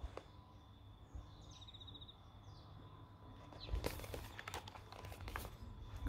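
Faint rustling and light knocks of a paperback picture book being closed and turned round, mostly in the second half. Underneath is a thin, steady high cricket trill that pulses briefly about halfway through.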